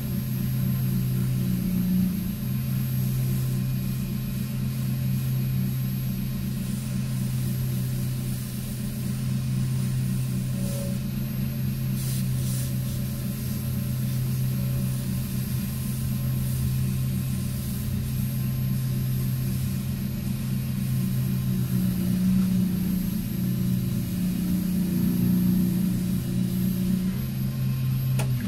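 Wood lathe motor running steadily with a low hum, the workpiece spinning at speed; the lathe is switched off at the very end and the hum starts to die away.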